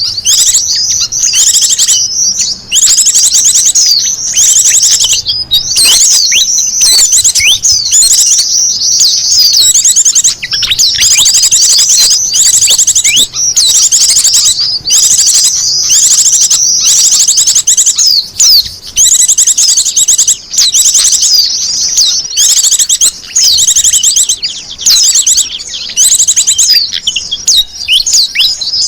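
Small wild birds chirping and trilling, a loud, dense, high-pitched chorus of rapid trills and quick chirps, nearly unbroken with only brief pauses: a bird-lure (pikat) call recording made to draw in small wild birds.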